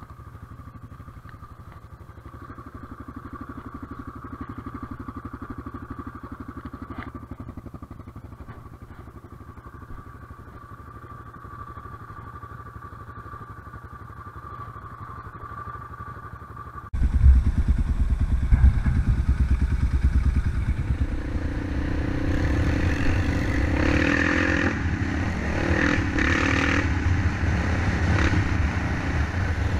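ATV quad engine idling steadily. About seventeen seconds in it turns suddenly much louder: a quad being ridden along a dirt forest track, the engine running under throttle and rising and falling.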